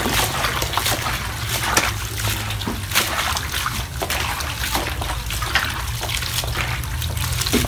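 Hands stirring, rubbing and lifting a basin of wild ground mushrooms in water, making a run of irregular splashes and sloshes while they are washed.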